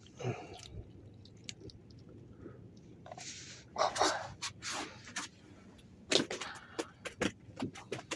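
Handling noise from a freshly caught bream and fishing tackle: scattered clicks, knocks and short rustling bursts. The bursts come thickest about three to five seconds in and again near the end.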